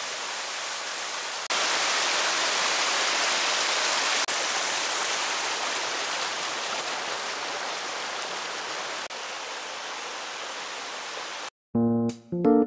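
A small creek rushing and cascading over rocks in a steady rush of water. It cuts out near the end, where keyboard music begins.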